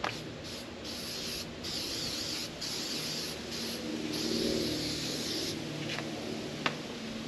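Aerosol spray can sprayed onto a car fender panel in several hissing bursts, with short breaks between them; the last and longest stops about five and a half seconds in. A sharp click follows near the end.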